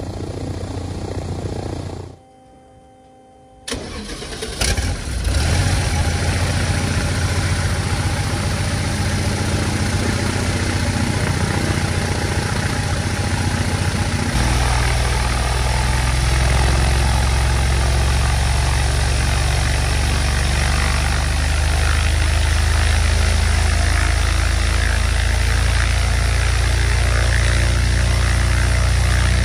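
Tarragon ultralight's UL Power aircraft engine and propeller on a ground run. The sound drops out briefly, then the engine starts about four seconds in and runs on, with a steadier, smoother note from about fourteen seconds in.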